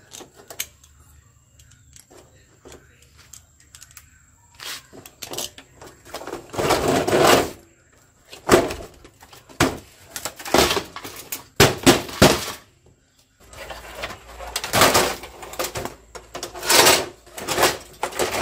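Scraping, knocking and clatter of a smart TV being taken apart by hand: small clicks at first, then a run of loud bursts, each about a second long, from about a third of the way in.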